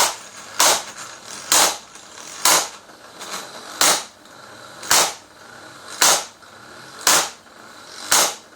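12V DC impact wrench hammering slowly on a car lug nut, about one sharp knock a second, nine in all, over the steady whir of its motor. It is trying to loosen a lug nut it has just tightened, and it takes blow after blow without breaking it free.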